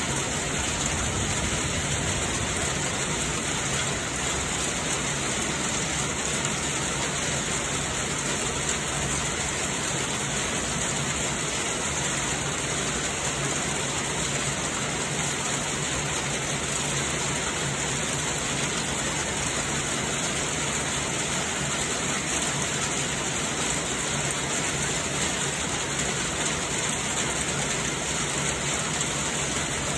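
Heavy rain falling steadily, splashing on flooded ground and puddles.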